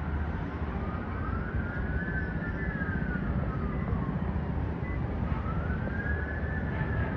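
Emergency vehicle siren wailing, its pitch slowly rising and falling, each sweep taking several seconds, over a steady low city rumble.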